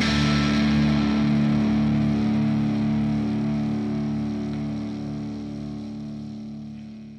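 Closing chord of a black metal track: a held, distorted electric guitar chord with a low note pulsing about twice a second, fading out steadily toward silence.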